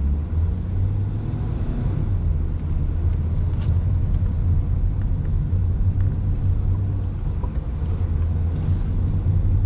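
C8 Corvette's 6.2-litre V8 heard from inside the cabin as the car drives off, a steady low rumble with no sharp revving.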